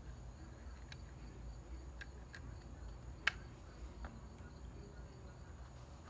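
Faint light clicks and taps of a 2.5-inch SSD and a small screwdriver being handled against a laptop's metal drive bay, about five in all, the sharpest a little past three seconds in, over a low steady hum.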